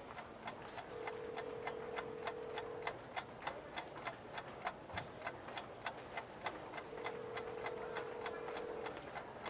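A clock ticking steadily, about two ticks a second, as the sound of time passing. Twice a steady tone sounds for about two seconds over the ticking.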